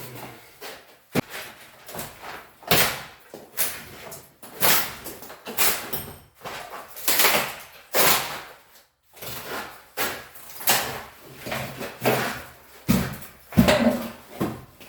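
An old wooden window frame being torn out: a rapid, irregular series of heavy knocks, bangs and scraping wood, about one or two a second.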